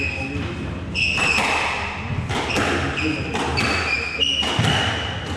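Squash rally: sharp knocks of the ball off rackets and walls, mixed with several short, high squeaks of players' shoes on the wooden court floor.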